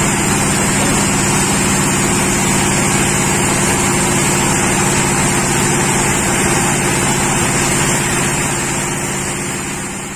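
Sawmill machinery running steadily with an even engine hum and a high whine, fading out near the end.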